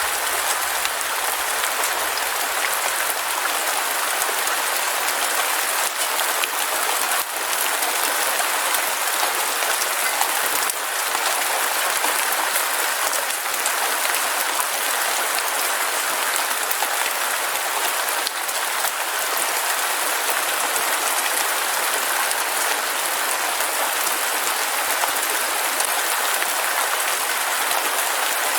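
Heavy rain falling steadily: a dense, even hiss and patter with no thunder.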